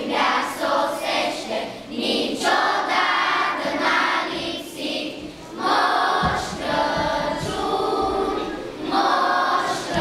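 Children's choir singing a Romanian Christmas carol together, phrase by phrase with short breaks between lines.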